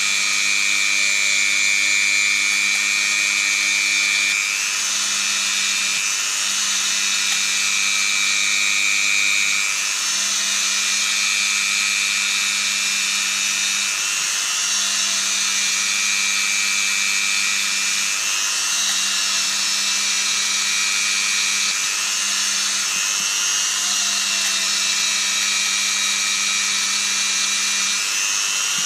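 Dremel rotary tool running at high speed, its small bit grinding on the steel of a hollow hex socket. The steady whine shifts a little every few seconds as the bit is pressed to the metal and eased off.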